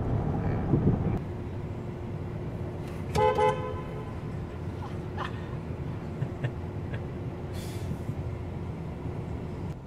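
Road noise inside a moving car for about the first second, then a car horn gives a brief toot about three seconds in over a low steady traffic hum.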